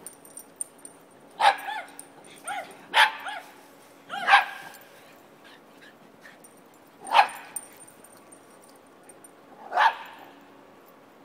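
Small dogs barking in short, sharp yaps while playing chase. A quick cluster of barks comes in the first few seconds, then single barks about seven and ten seconds in.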